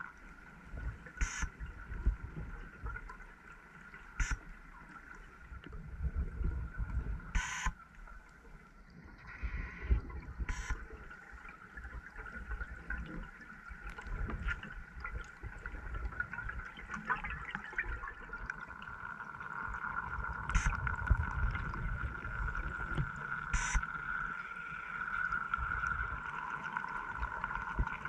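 Muffled underwater sound picked up by a scuba diver's camera: an irregular low bubbling rumble from the diver's exhaled breath, over a steady high hum. About six sharp clicks are heard, spaced several seconds apart.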